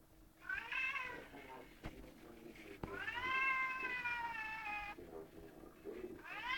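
Cat meowing: a short meow about half a second in, then a long drawn-out meow of about two seconds from about three seconds in, and another starting near the end.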